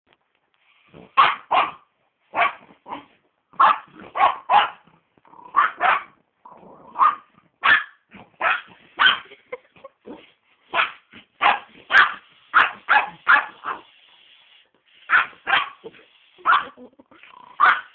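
Pomeranian barking over and over in short, sharp, high yaps, often two in quick succession, in alarm at a remote-controlled toy tarantula crawling toward her.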